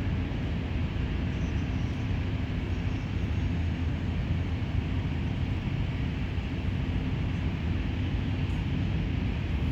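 Steady low rumbling background noise with a hiss above it, unchanging throughout.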